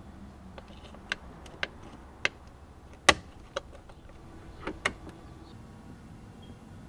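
A scatter of about seven small, sharp clicks and ticks, the loudest about three seconds in, from hand work on the steering wheel wiring.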